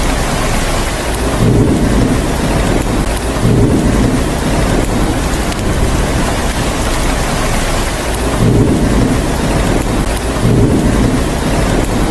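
Steady heavy rain hissing evenly, with low rumbles of thunder swelling up four times, in two pairs about two seconds apart.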